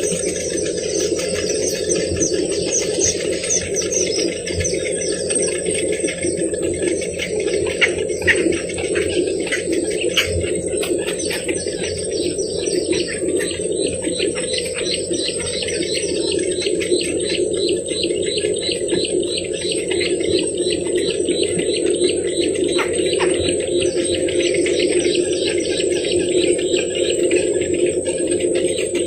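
Birds calling in long runs of fast, high chattering notes repeated several times a second, over a steady high whine and a low background drone.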